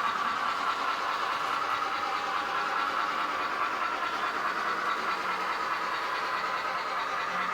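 Sound decoder of a Fleischmann BR52 N-scale model steam locomotive playing a steady steam-engine running sound through its tiny speaker, thin and tinny.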